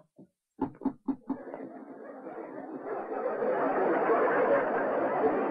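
A few quick knocks a little over half a second in, then audience laughter from a sitcom laugh track that swells over the next couple of seconds and holds at full level.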